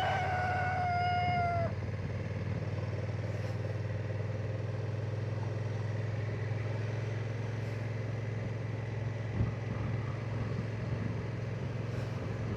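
Motorcycle engine running steadily, a low even hum. During the first two seconds a loud held pitched tone sounds over it and then cuts off.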